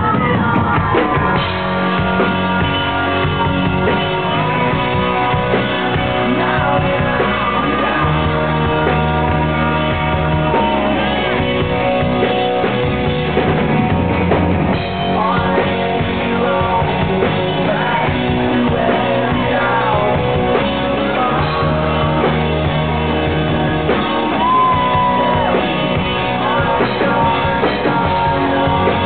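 Live rock band playing a song: a male voice singing over drum kit, bass guitar, electric guitar and keyboard, heard loud from the front of the stage.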